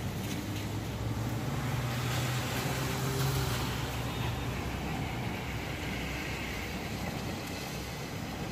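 A motor vehicle passing, its engine hum and road noise swelling to a peak about three seconds in and then fading.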